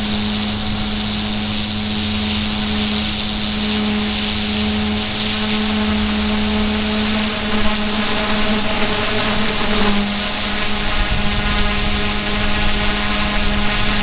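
E-flite Blade mCP X micro RC helicopter in flight, recorded from its own onboard camera: the upgraded brushless main motor, tail motors and rotors give a steady high whine over a low hum. More tones join about halfway through.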